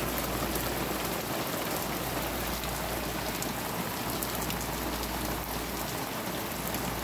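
Steady rain falling on a paved backyard: an even hiss of drops with a low rumble underneath.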